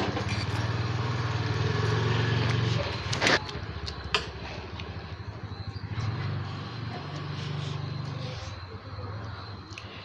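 A small engine running steadily, swelling twice, with a couple of sharp metallic clinks of forks against steel plates a little past the middle.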